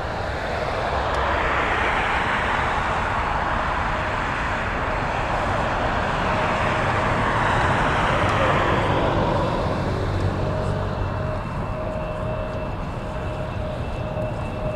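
Lockheed C-5M Super Galaxy's four GE F138 turbofans at takeoff power as the transport climbs away: a steady jet roar that swells over the first couple of seconds and eases off slightly as it recedes. A thin steady whine joins in over the second half.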